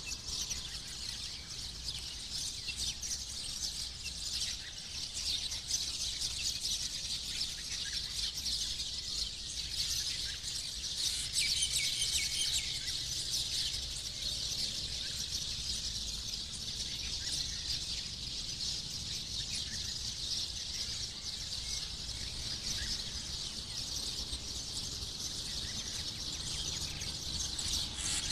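Dawn chorus: many small birds chirping and calling at once in a dense, unbroken chatter of high-pitched twitters.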